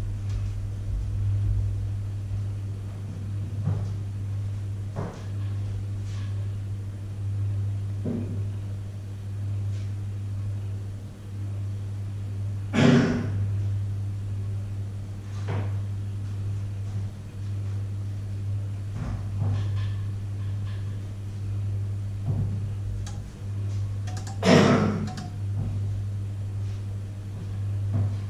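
A steady low hum with scattered faint knocks, and two louder clunks, about thirteen and twenty-four seconds in.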